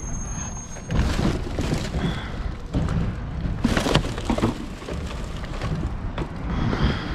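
Several irregular thumps and scraping rustles as curbside scrap is pulled out and handled.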